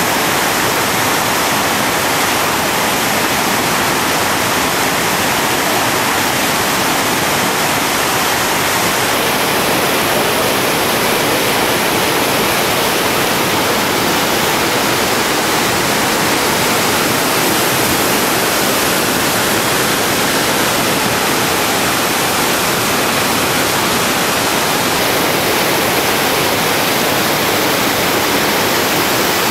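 Whitewater rapids rushing over and around boulders: a steady, unbroken roar of churning river water.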